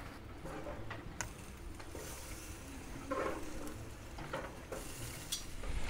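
A few faint, scattered clicks of metal tongs against the stainless steel grate of a Magma Chefsmate gas grill as steaks and vegetables are turned, over a low background.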